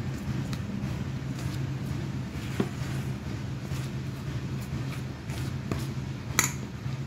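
Steel spoon stirring gram flour into a thick batter in a stainless steel bowl: soft scraping with light taps of the spoon on the bowl, and one sharper metallic clink near the end. A steady low hum runs underneath.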